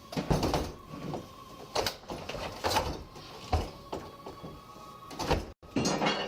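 Irregular knocks and scrapes of heavy household objects being shifted and handled, about six in a row.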